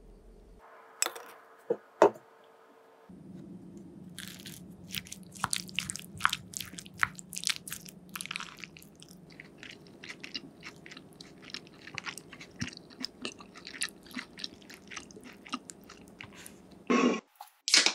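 Wooden spoon mixing saucy mapo tofu into rice in a ceramic bowl: a dense run of short, irregular wet squishes and clicks. A few sharper clicks come about a second and two seconds in, before the mixing starts.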